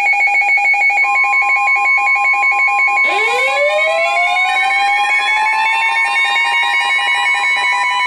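Layered electronic emergency alert tones: a two-pitch alarm beeping about four times a second, joined about a second in by a steady high tone. About three seconds in, a siren winds up in pitch and then holds.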